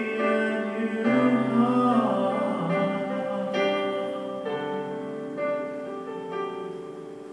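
Christian worship song: singing over held instrumental chords, slowly getting quieter toward the end.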